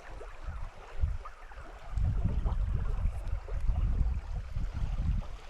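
A shallow river running over a riffle, with a low rumble on the microphone that grows louder about two seconds in.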